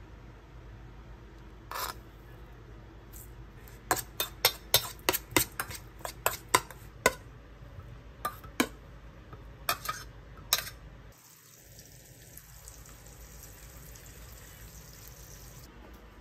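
A metal spoon clinking and scraping against a stainless steel mixing bowl while seasoned cucumber is mixed and scooped out: a quick run of sharp taps, then a few more, stopping about eleven seconds in.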